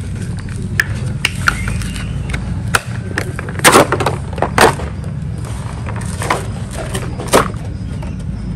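Stiff clear plastic blister packaging being pulled and peeled off its cardboard backing: irregular crackling and crinkling, with loud sharp snaps in the middle and near the end. A steady low hum runs underneath.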